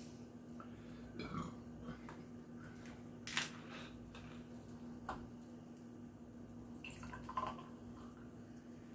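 Faint drips and a few soft knocks and clicks as a sparkling water drink is handled, over a steady low hum.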